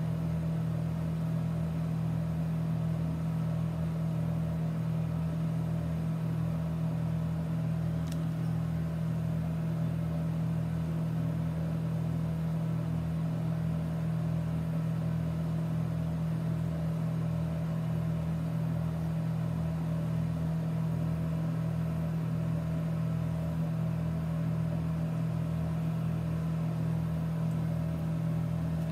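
A steady low motor hum, unchanging in pitch and level, with a single faint tick about eight seconds in.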